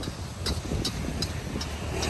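Steady road-traffic rumble with short, sharp clinks two to three times a second, as of a metal spatula striking a wok while noodles are stir-fried.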